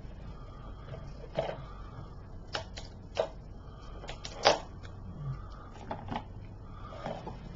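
Plastic shrink wrap being picked at and peeled off a DVD slipcover: irregular crinkles and sharp clicks, the loudest about four and a half seconds in.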